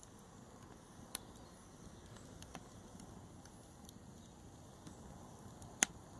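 Logs burning in an open wood fire: a faint steady hiss with scattered sharp pops and crackles, the loudest pop near the end.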